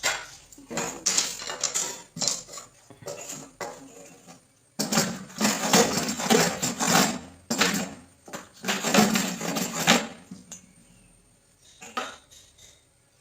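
Bench woodwork on small teak pieces: clattering knocks and clinks of wood and hand tools, then about five seconds of scraping or cutting noise in two stretches as the piece is trimmed to length and width.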